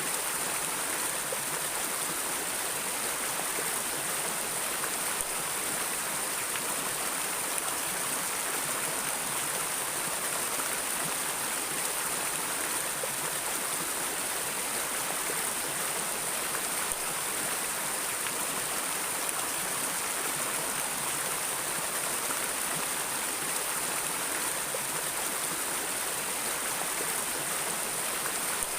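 Stream water flowing over rocks: a steady, even rushing hiss with no breaks.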